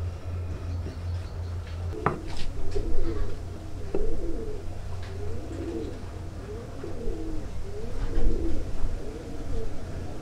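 A dove cooing over and over in low, repeated calls. A sharp wooden knock comes about two seconds in and a lighter one about four seconds in, as the joint pieces are fitted together.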